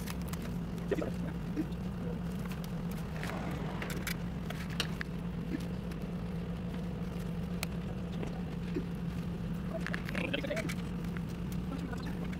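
A steady low hum with scattered faint clicks and taps as a bare drive circuit board and its cables are handled.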